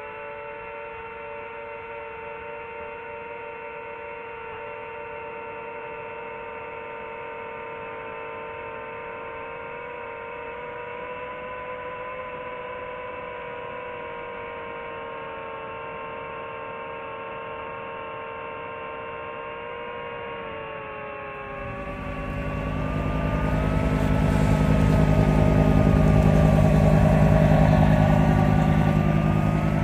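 Steady whine of a small drone's motors and propellers, several held tones drifting slightly in pitch together. About twenty seconds in, a motorboat engine comes in low and grows loud, peaking near the end.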